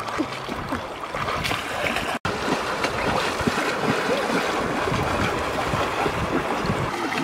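River water splashing and churning as a person wades quickly through it, with ducks beating their wings against the water.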